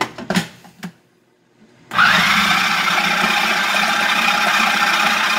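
A few plastic clicks as the food processor's lid is fitted. About two seconds in, the Jamie Oliver food processor's motor switches on, winds up quickly and runs steadily, mixing bread dough.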